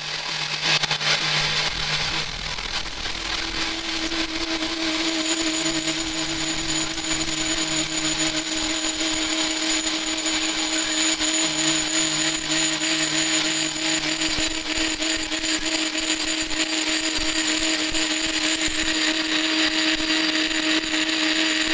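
Metal lathe turning a VCN steel blank to size: a steady whirring cutting noise, with a whine that sets in a few seconds in and holds.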